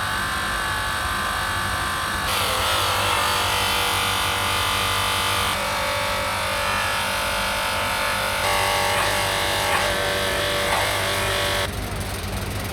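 Background music with a wavering melodic line that changes every few seconds, over a steady low machine hum.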